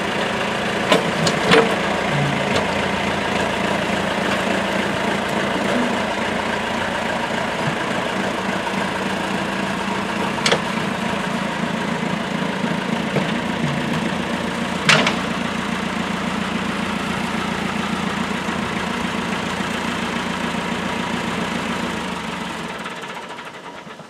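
Old farm tractor with a front-end loader running steadily as it is driven slowly, with a few sharp metallic clanks. Near the end the engine is shut off and dies away.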